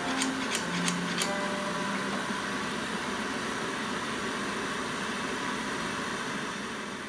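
Light hammer taps on a chisel against a steel blade die, four quick metallic ticks in about the first second, at a steady rhythm of roughly three a second. They stop, and a steady hiss of workshop background noise carries on.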